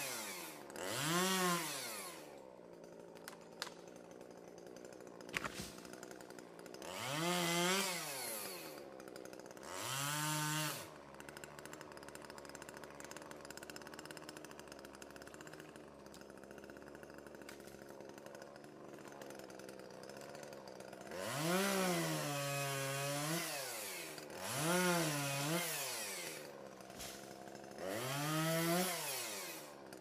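Chainsaw revved in short bursts, each rising and falling in pitch, about seven times. It runs at a low steady idle in between, with a long idling stretch in the middle.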